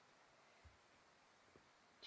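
Near silence: room tone, with two faint, short soft thumps.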